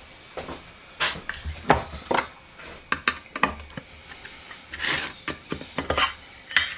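Objects being handled and set down on a wooden workbench while waxing supplies are readied: a scattered series of sharp clicks and knocks with a few short rubbing sounds.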